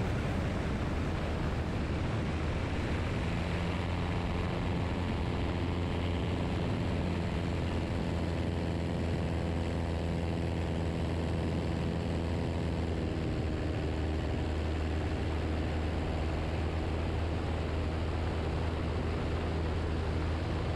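Piper Super Cub's piston engine and propeller droning steadily in flight, with a slight shift in pitch about halfway through.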